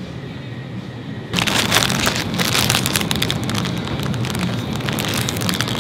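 Plastic instant-noodle packet crinkling as it is handled, starting abruptly about a second in and continuing as a dense crackle over a low steady store hum.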